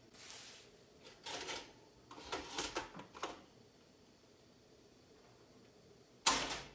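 A few short scraping and rustling sounds of objects being handled, the loudest one near the end.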